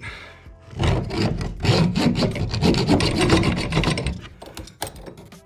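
Hacksaw blade in a jab saw sawing through a seized metal faucet mounting nut on a tub valve shank, in quick rasping back-and-forth strokes. The strokes start about a second in and stop about four seconds in.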